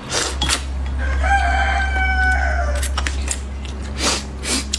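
A rooster crows once in the background, one held call of about a second and a half, mixed with short slurps and chewing sounds from noodles being eaten. A steady low hum runs underneath.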